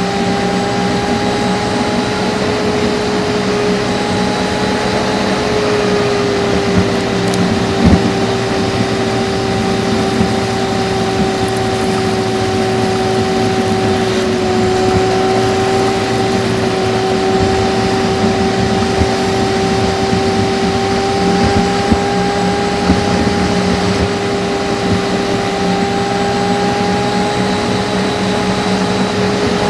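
Renault Laguna 1.8 8-valve four-cylinder petrol engine and road noise at a steady cruise, played back five times fast so that the engine drone is a high, steady hum. A brief knock about eight seconds in.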